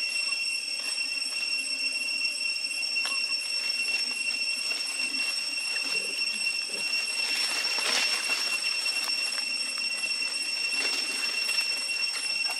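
Insects, most likely cicadas, droning steadily at one high pitch in the forest, with a brief swell of hiss about eight seconds in.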